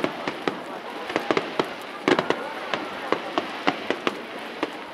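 Fireworks display: a rapid, irregular run of sharp cracks and pops from bursting shells over a steady rushing noise, thickest about two seconds in.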